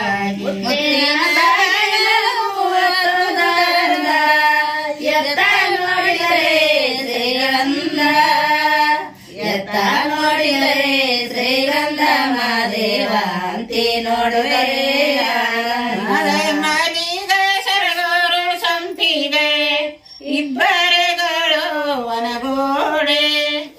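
Women singing a Kannada devotional folk song to Mahadeva without instruments, in long drawn-out, wavering held notes. The singing breaks off briefly twice, about nine and twenty seconds in.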